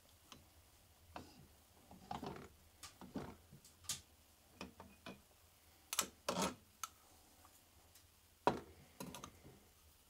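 Scattered metal clicks and light knocks as the crankshaft of a Minsk MMVZ 3.232 two-stroke engine is worked loose and pulled out of the crankcase half by hand. It slides out of its bearing without being pressed out, a sign of a loose, worn fit on the shaft.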